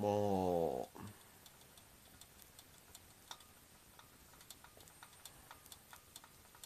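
A man's short hum at the start. Then faint, irregular ticks and pops from frozen nori-topped chicken karaage heating on an electric hot plate.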